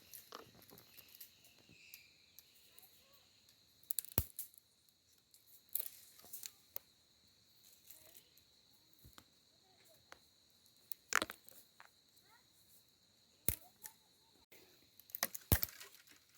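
A steady high chirring, typical of crickets, runs underneath. About five short, sharp knocks or clicks are scattered through it.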